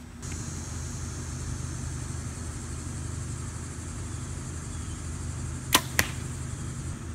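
A Bowtech compound bow is shot: a sharp snap of the string on release, then about a quarter second later the smack of the arrow hitting the target. A steady low hum runs underneath.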